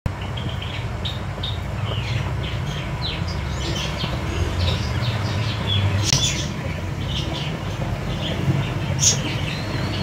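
Several budgerigars chattering in a cage, a busy run of short high chirps and warbles with a few sharper calls, over a steady low rumble.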